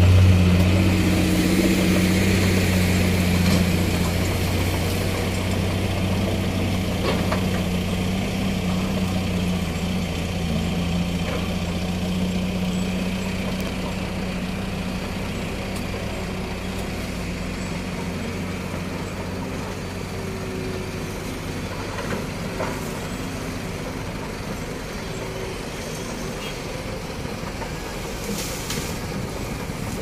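Diesel engine of heavy earthmoving machinery running steadily, a low hum that slowly fades over the span, with a few faint knocks from the work.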